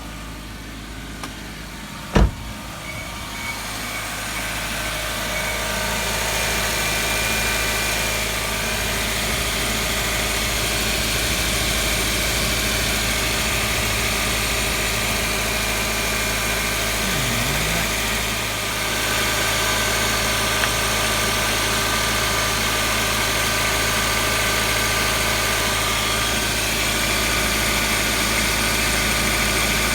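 Mazda Demio's 1.5-litre four-cylinder engine starting with a sharp click about two seconds in, then idling steadily on a freshly fitted ribbed accessory drive belt.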